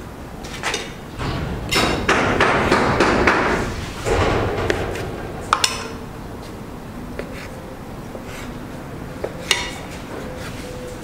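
Kitchen handling sounds: a couple of seconds of rustling noise, then a few sharp clinks of a metal spoon against cookware, a quick pair about halfway through and another near the end.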